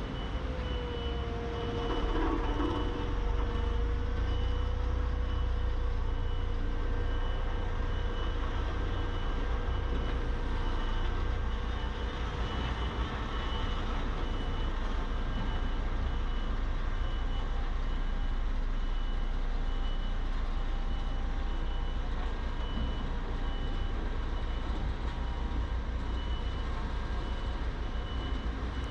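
Heavy construction machinery running with a steady low engine rumble, while a reversing alarm beeps at an even rate. A steady mid-pitched whine is heard during the first few seconds.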